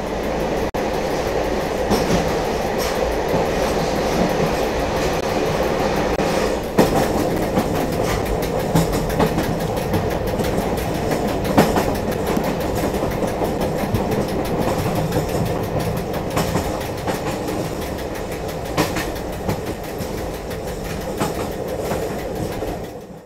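A train running on rails: a steady rumble with scattered clicks of wheels over the rail joints, cutting off abruptly at the end.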